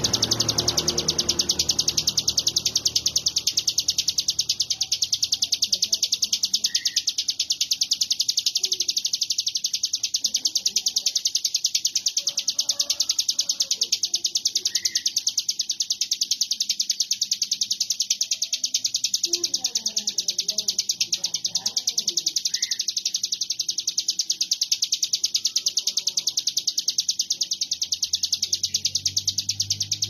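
Ciblek gunung (a prinia) singing a continuous, very fast buzzing trill in the 'konslet' style, like an electric short-circuit, with a short lower note about every eight seconds.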